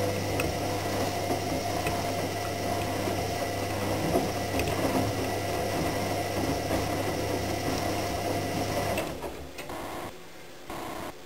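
AEG Lavamat 76730 front-loading washing machine's drum spinning fast, its motor giving a steady hum and whine. About nine seconds in the motor cuts out and the drum coasts to a stop, with a brief motor pulse near the end.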